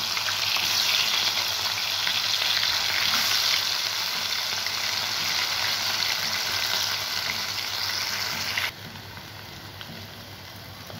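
Cornflour-coated cauliflower florets deep-frying in hot oil, just dropped in: a loud, steady sizzle that drops suddenly to a quieter sizzle near the end.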